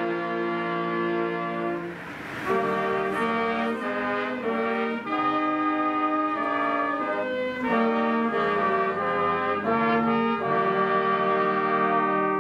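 Church brass choir playing a Christmas carol in slow, held chords.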